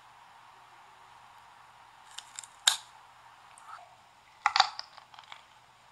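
Raw baby carrot being bitten and chewed, giving a few sharp crisp crunches: one about halfway through and a quick cluster of cracks a little later, over faint steady hiss.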